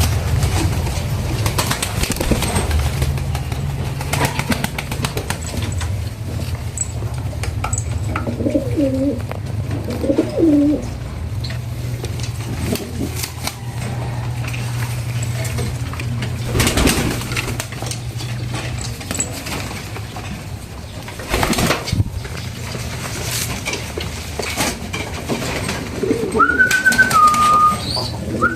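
Pigeons cooing, with scattered taps and clicks over a steady low hum. Near the end a higher two-note call sounds twice.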